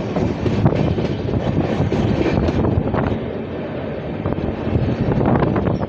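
Moving passenger train's wheels running on the rails, heard from an open coach doorway: a loud steady rumble and hiss broken by many sharp clacks as the wheels cross rail joints and points.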